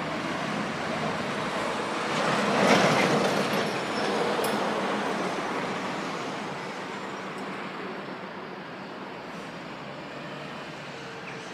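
Road traffic driving over a level crossing: cars and a city bus pass by. The noise swells to its loudest about three seconds in, then slowly fades.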